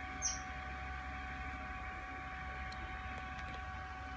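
Steady room hum and hiss, with one brief high chirp about a quarter of a second in and a few faint clicks later on.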